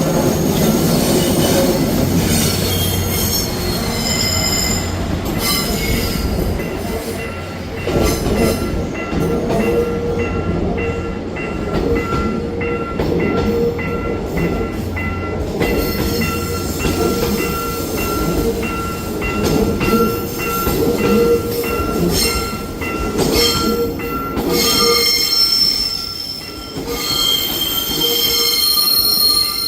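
Saemaul-ho passenger train rolling through the tight curve of a railway triangle, its wheels squealing on the rails with high, shifting tones over a steady rumble. A level-crossing warning bell rings in a steady repeated pattern through most of it.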